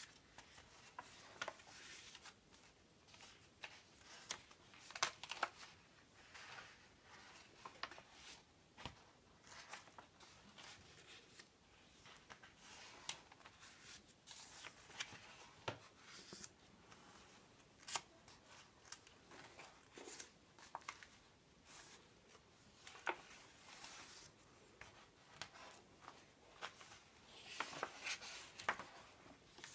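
Large printed paper pages of a softcover photo-book proof being turned by hand: irregular paper rustling with sharp flicks as each sheet flips over.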